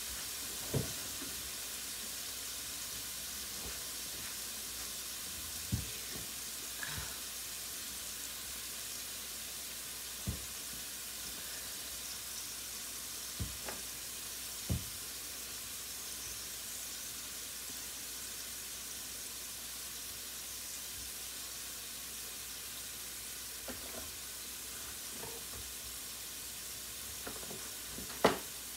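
Salmon fillets and asparagus frying in skillets on a gas stove, a steady sizzle. A few short clicks or pops come now and then, and a sharper knock near the end.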